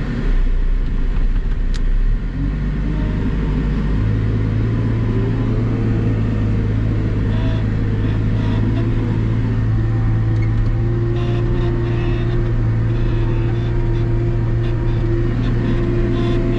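Wheel loader's diesel engine running, heard from inside the cab while the loader pushes snow with a box plow. The engine note changes a couple of seconds in, then holds steady.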